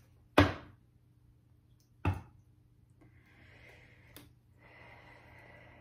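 A deck of tarot cards knocked twice against a tabletop, the first knock the louder, then a faint rustle of cards sliding as the deck is handled, with a small click midway.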